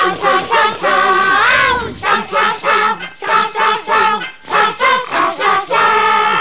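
A children's lullaby sung in high puppet voices to music: quick repeated syllables in an even rhythm, with a longer wavering held note about a second and a half in and another near the end.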